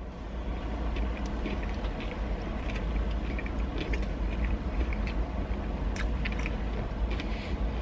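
A man chewing a mouthful of chicken burger, with short wet mouth clicks and smacks scattered through, over a steady low rumble.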